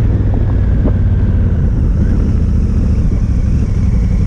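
Honda Africa Twin twin-cylinder motorcycle engine running steadily while riding along a gravel road, with wind rumbling on the microphone.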